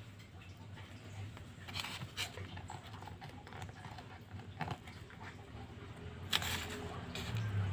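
Fingers handling and picking at a card picture sheet on a foam mat: a few scratches and taps over a low steady hum.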